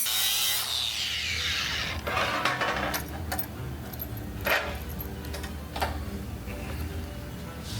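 An angle grinder with a fibre sanding disc spins down, its pitch falling over the first second or so. Then come a few sharp metallic clinks and knocks over a steady low hum, and grinding starts again at the very end.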